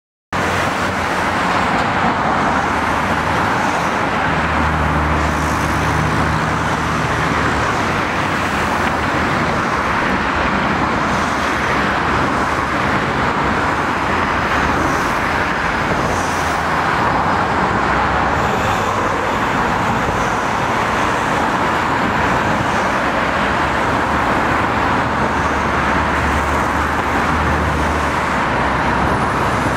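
Steady street traffic noise, with a low hum that swells twice: about five seconds in and again near the end.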